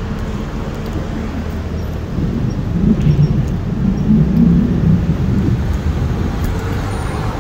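Wind buffeting the microphone of a phone carried on a moving bicycle: a low rumbling noise that grows louder about two seconds in and eases a little near the end.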